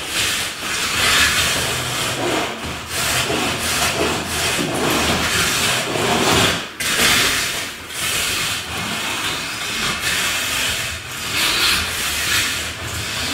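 A rake's metal tines scraping through wet self-levelling compound on a cement screed, in repeated strokes about a second apart, combing the compound into the base.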